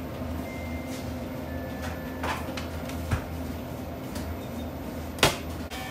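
Perforated metal oven-loader tray knocking and scraping as it is drawn out of a deck oven and set down on a wire rack, over a steady low kitchen hum. A few light knocks come in the middle, and a sharp metallic clank, the loudest sound, comes near the end.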